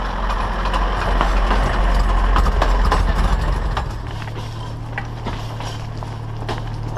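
Engine of a minibus fitted with rail wheels running close by, a low steady rumble. About four seconds in, it gives way to a quieter, steadier hum with scattered clicks.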